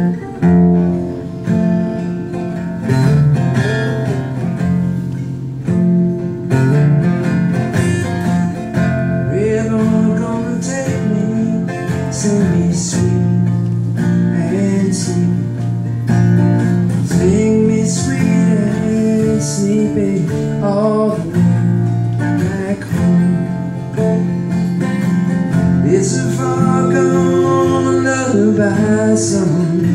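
Two acoustic guitars strummed and picked together while a man sings lead, played live.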